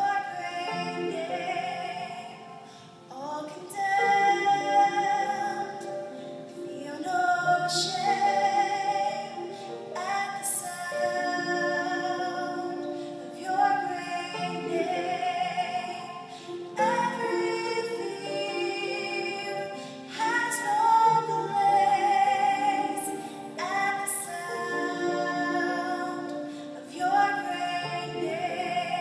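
A choir singing a slow worship song in long held phrases, with a short breath between lines every few seconds.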